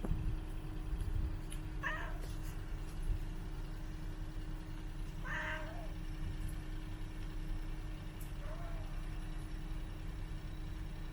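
Stray cat meowing three times, about three seconds apart, the last call fainter, over a steady low rumble.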